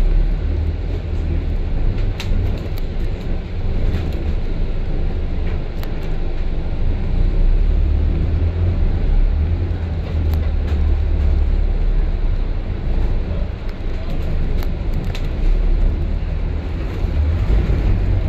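Steady low engine and road rumble inside a moving London double-decker bus, with a few light clicks and rattles.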